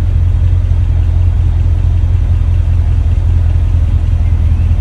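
A pickup's engine running low and steady, heard from inside the cab as the truck rolls slowly in traffic.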